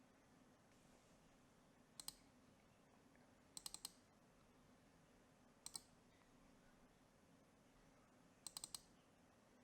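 Short, sharp clicks of a computer mouse in quick groups: two, then four, then two, then four, with near silence between.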